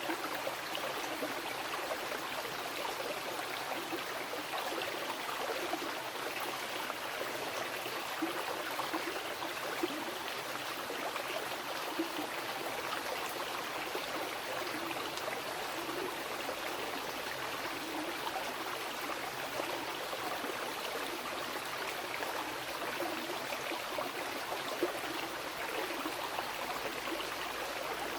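Mountain river flowing over rocks: a steady rushing of water with small splashes and gurgles.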